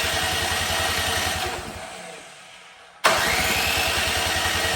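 A snowblower engine that has sat unused for years being cranked over without catching. A fast low pulsing runs with a steady whine through two attempts: the first winds down over the first few seconds, and the second starts abruptly about three seconds in.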